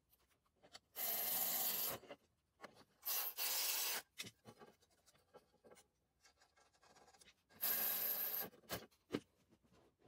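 Cordless electric ratchet running in three short bursts, about a second each, the last near the end, driving in the bolts that hold a new stator in an ATV engine's side cover. Small clicks and knocks of the parts being handled come between the bursts.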